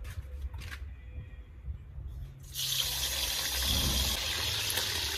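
Boiled chicken lowered into hot cooking oil in a pot on a camp gas stove: after a few handling clicks, a loud sizzling hiss starts suddenly about two and a half seconds in and keeps going as the chicken fries.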